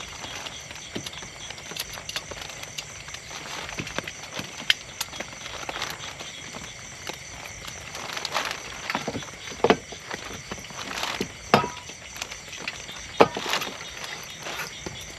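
Steady rain hiss with many small irregular clicks, and louder knocks about ten, eleven and a half, and thirteen seconds in.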